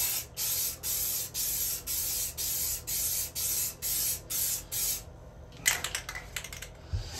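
Rust-Oleum Tub & Tile aerosol spray paint hissing out of the can in about a dozen short, even bursts, roughly two a second, with a high hiss. The spraying stops about five seconds in, followed by a few light clicks.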